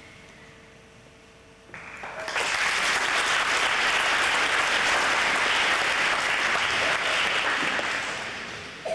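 Audience applauding. It starts about two seconds in, holds steady, and dies away near the end.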